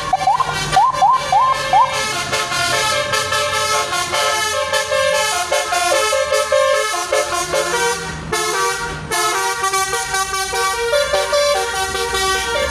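Tour bus's telolet basuri musical horn playing a tune of held notes that step up and down in pitch, opening with four quick rising whoops. The tune breaks off briefly about eight seconds in, then carries on.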